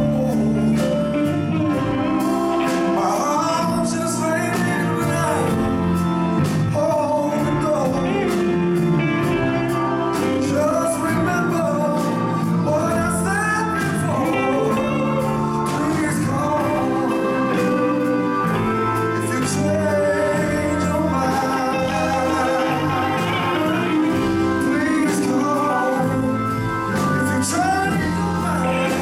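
A live blues-rock band playing a slow song: electric guitars, organ and drums, with a male lead singer.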